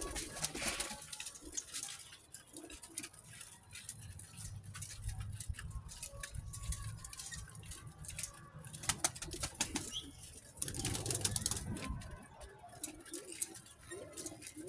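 Domestic pigeons cooing in low murmurs, with scattered flutters of wing flapping, the busiest about nine and eleven seconds in.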